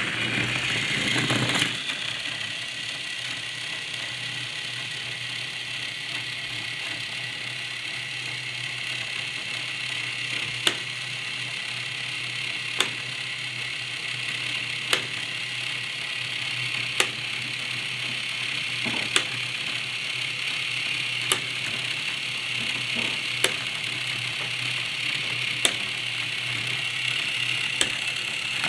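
Battery-powered Tomy/Trackmaster Toby toy engine running on plastic track, its small electric motor and gears giving a steady whir. From about ten seconds in, a sharp click comes about every two seconds.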